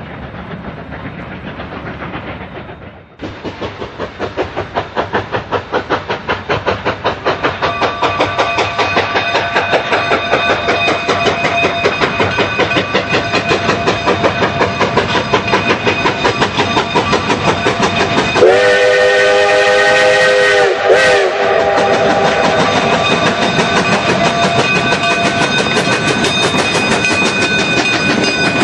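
Narrow-gauge steam locomotive (D&RGW K-36 class Mikado) pulling away, its exhaust chuffs quickening as it gathers speed. About two-thirds through, its multi-tone steam whistle blows one long blast, then a short one.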